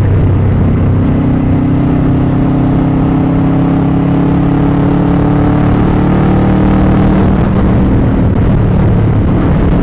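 Motorcycle engine running steadily while riding, its pitch shifting about a second in and then easing slowly down.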